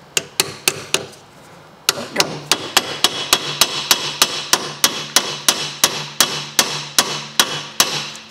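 Hammer blows on a steel chisel wedged into the split of a VW Tiguan's front hub carrier, driving it in to spread the clamp and free a rust-seized pinch bolt. Four quick metallic strikes, a short pause, then a steady run of about three to four ringing blows a second.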